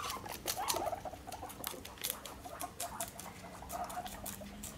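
Guinea pigs munching lettuce: quick, irregular crunching clicks of their chewing.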